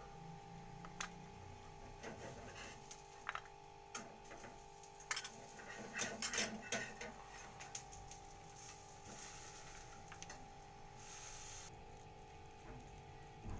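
Light clicks and taps of small spice containers and a spoon against a ceramic bowl as spices and black pepper are added to flour, thickest about five to seven seconds in, over a faint steady hum; a short hiss comes near the end, before a silicone spatula starts stirring the mix.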